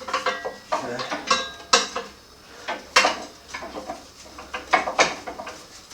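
Irregular metal clinks and clanks of motorcycle parts and hand tools being handled, some with a short ring.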